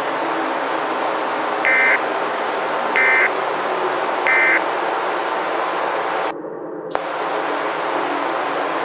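Three short bursts of EAS end-of-message data tones, the warbling SAME digital signal that closes an emergency alert, sent about 1.3 seconds apart. They play over a steady hiss of static. The static drops out briefly about six and a half seconds in, and a click sounds as it returns.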